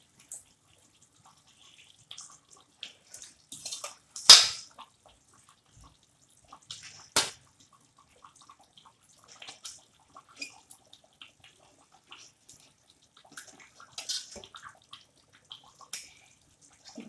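Fried surmai fish steaks being dropped one by one into hot curry gravy: scattered wet plops and splashes of liquid. The loudest splash comes about four seconds in, and a sharp click follows about seven seconds in.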